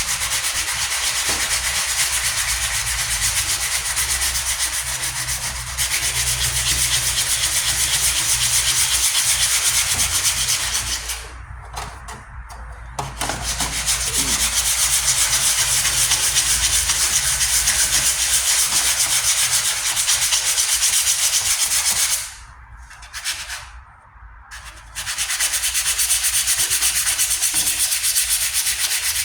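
80-grit sandpaper scrubbing steadily over filler and primer on a steel truck tailgate patch, to remove coarser 40-grit scratches. The sanding stops briefly twice, about eleven and twenty-two seconds in.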